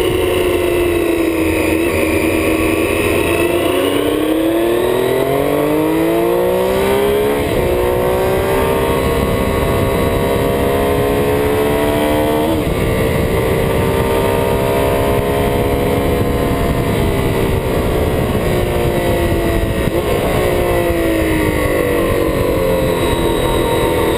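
Triumph Street Triple 675 three-cylinder engine at track speed with steady wind rush. It drops off the throttle, then accelerates hard with upshifts about seven and twelve seconds in, eases off, and picks up again near the end.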